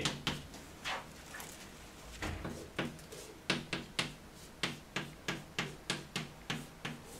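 Chalk writing on a blackboard: a quick run of short, sharp taps and scratches as characters are written, about two or three strokes a second through the second half. A dull thump comes a little over two seconds in.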